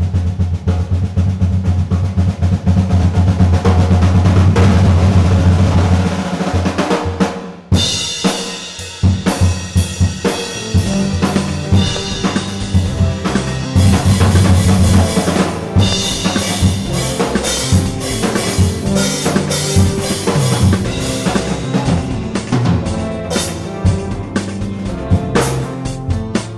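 Acoustic drum kit with cymbals played over a backing music track. Dense drumming over a strong low sustained note for the first six seconds or so, a short break about eight seconds in, then a busy beat with cymbal hits.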